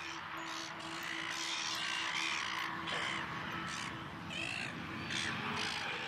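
Silver gulls calling: a run of short, harsh cries, several a second at times, overlapping one another.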